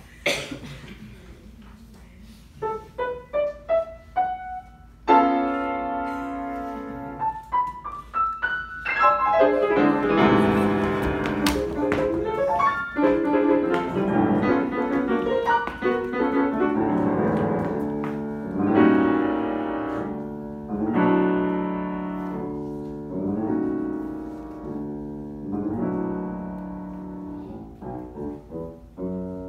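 Grand piano played solo in a lively classical piece: a sharp accented note, then quick rising figures of single notes and held chords, and from about nine seconds in, busy fast passages with loud accented phrases.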